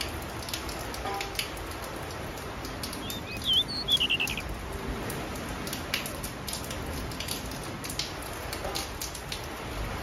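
Small finches calling in short chirps and ticks over a steady hiss. A brief run of higher, quickly repeated calls about three and a half seconds in is the loudest part.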